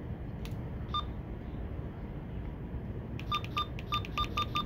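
Handheld VHF marine radio keypad beeping as its channel buttons are pressed. There is one short beep about a second in, then a quick run of six short beeps about a quarter second apart near the end, as the radio is stepped through the channels toward Channel 9.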